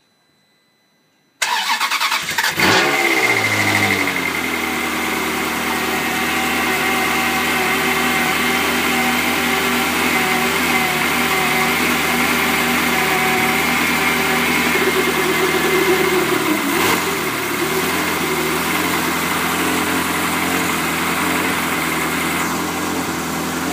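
Ferrari 360's 3.6-litre V8 starting from cold about a second and a half in, flaring briefly, then settling into a steady, loud idle that is rough from the cold start.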